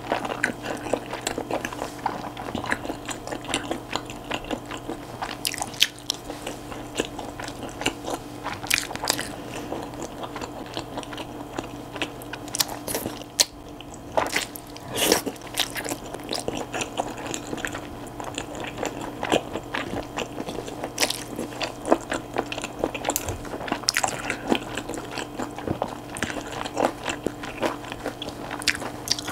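Close-miked eating of chewy, sauce-coated wide Chinese glass noodles: wet chewing and sucking-in mouth sounds with irregular clicks and smacks, a few louder ones about 9 and 15 seconds in.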